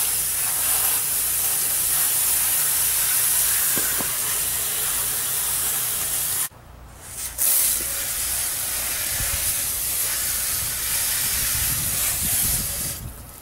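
Water jets from a PVC pipe undercarriage washer, fed by a garden hose, spraying up against a lawn tractor's underside and the pavement: a steady hiss that drops out briefly about halfway through, then resumes.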